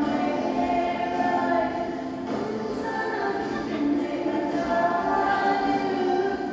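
Music with a choir of voices singing a song in long held notes, for the dance.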